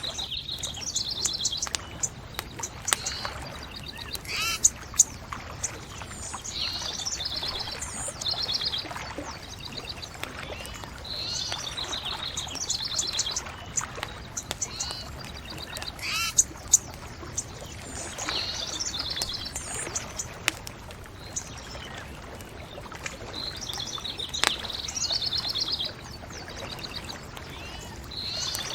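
Songbirds singing repeated short trilling phrases every few seconds over a crackling bonfire, with occasional sharp pops from the fire.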